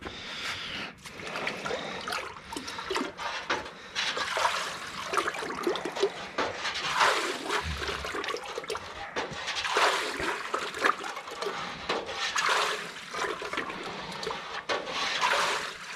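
Carburetor parts being dunked in a bucket of carburetor-cleaner dip, the solvent sloshing and gurgling in repeated surges.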